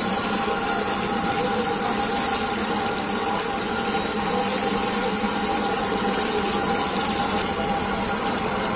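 Oil sizzling steadily on a large flat street-food griddle as meat and kebabs fry.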